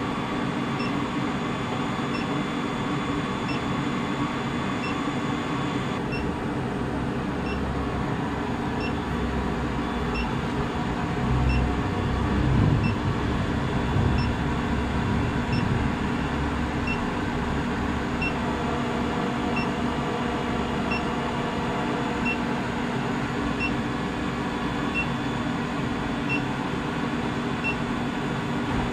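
25 kW induction heater running steadily while heating a crucible load of rivets: a constant hum and whine from the machine, with faint ticks about once a second. A louder low rumble comes in for a few seconds in the middle.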